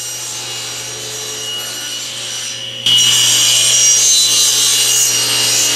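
Table saw ripping a strip off a glued-up cherry and maple block: the blade spins with a steady whine, and about three seconds in the cut gets much louder and harsher as the blade bites into the wood.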